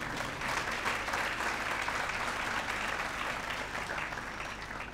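A large congregation clapping, a dense, even applause that thins out near the end.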